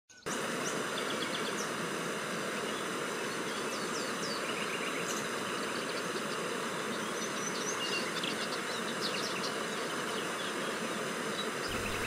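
Steady outdoor dawn ambience: a dense hum of insects, with scattered short bird chirps and quick trills above it.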